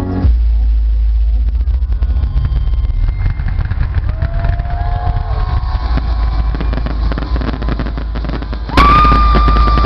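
Electronic dance music from a festival sound system, heard as heavy, distorted bass through a phone's microphone in the crowd. About nine seconds in there is a sudden loud crack, and a high held tone starts over the music.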